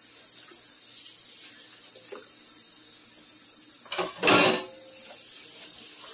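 Kitchen faucet running steadily into a stainless steel sink. About four seconds in comes one loud clatter of cookware against the sink that rings briefly.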